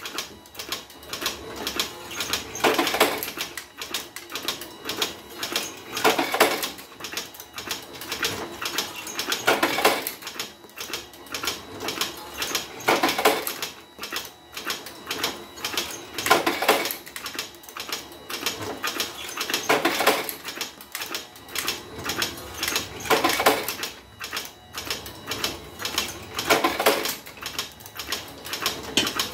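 Homemade revolver-cylinder automatic cigarette-making machine running, filling filter cigarettes with moist kretek tobacco: continuous rapid mechanical clicking and clattering, with a louder stroke about every three and a half seconds.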